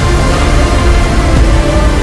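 Soundtrack music: a loud, steady orchestral-style score with sustained notes over a heavy bass.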